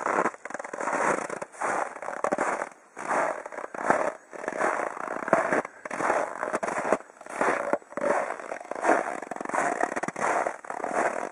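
Footsteps crunching in snow at a steady walking pace, a little under two steps a second.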